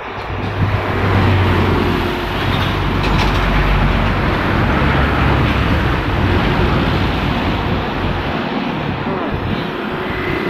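Hydraulic excavator's diesel engine running loud and steady, picking up about half a second in and holding with a deep low drone.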